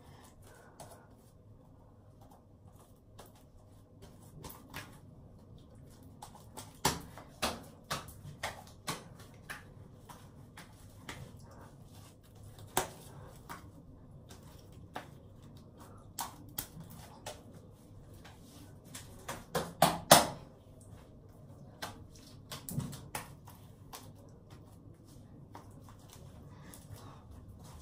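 Irregular clicks and knocks of something being handled, sparse at first and then frequent, with a quick cluster of louder knocks about twenty seconds in.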